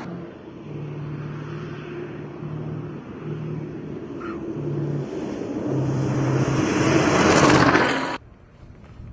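KAMAZ rally truck's diesel engine running hard as the truck charges along a dirt track. It grows louder as the truck closes in, peaks near the end, then drops away abruptly.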